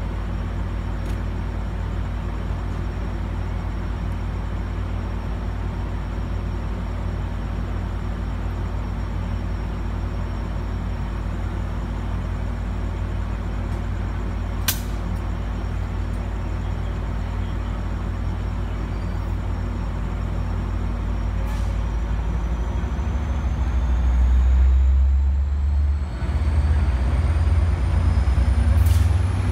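Amtrak Pacific Surfliner train standing at the platform with its diesel engine running: a steady low rumble, with one sharp click about halfway through. Near the end the rumble grows louder and a faint rising whine comes in.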